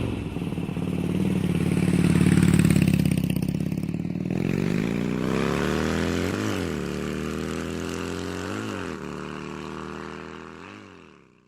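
Voge 300 Rally's single-cylinder engine accelerating through the gears: the pitch climbs, drops sharply at each of three upshifts, then fades away near the end.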